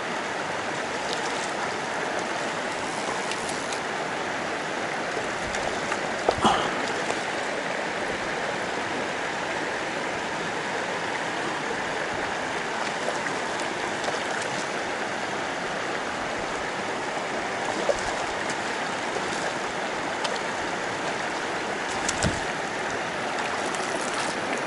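River water rushing steadily, with a few brief knocks about six seconds in and again later.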